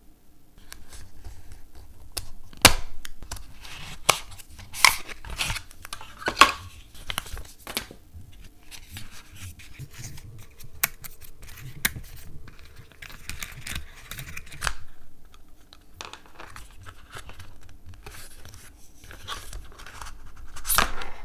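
Cardboard and paper packaging of an Apple MagSafe charger being opened and handled: paper tearing, scratchy rustling and sharp clicks as the box is unsealed, the tray is slid out and the charger's paper wrap is pulled away. The loudest snaps come about two and a half seconds in, about five seconds in, and just before the end.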